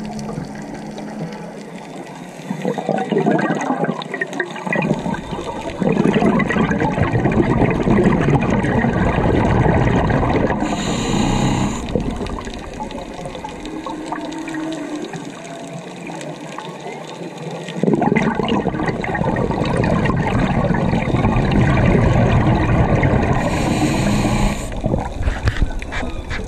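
Scuba diver breathing through a regulator underwater: long bubbling exhalations, each followed by a short high hiss, with quieter stretches between.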